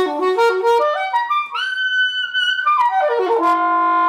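Solo saxophone playing a quick rising run of notes. About a second and a half in it holds a high note with a slight waver, then runs quickly back down and settles on a long steady low note near the end.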